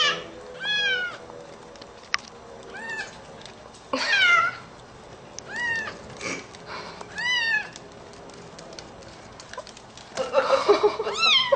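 Young kitten mewing: about six short, high, thin mews, each rising and falling, spaced a second or two apart. A brief louder burst of noise comes near the end, as the kitten tumbles out of a plastic tub.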